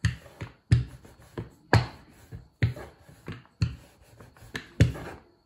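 Wooden rolling pin rolling out a round of dough on a floured wooden board, with a knock about once a second as the pin is pushed back and forth, and fainter knocks in between.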